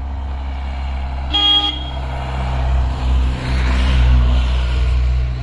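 A vehicle horn toots once, briefly, about a second and a half in, over steady engine hum and road noise.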